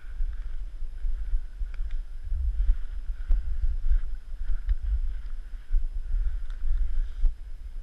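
Wind rumbling and buffeting on the microphone while skiing on snowblades through deep snow, with a faint on-and-off hiss of the skis sliding and a few small clicks.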